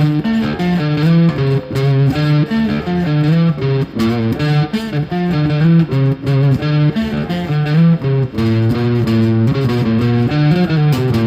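Electric bass guitar played through light distortion: a busy riff of plucked notes that changes pitch every fraction of a second, ending on a held low note.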